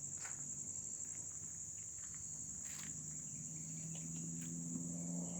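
Steady high-pitched drone of insects, unbroken throughout, with a few faint clicks and a faint low hum that grows louder near the end.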